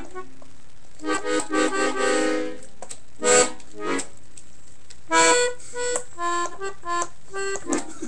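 Piano accordion played haltingly by a first-time player: stop-start reedy chords, two short loud blasts, then a run of short, separate notes with gaps between them.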